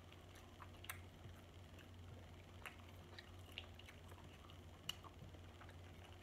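Faint, scattered clicks and small wet crackles of a crab leg's shell being picked apart by hand to get the meat out, over a low steady hum.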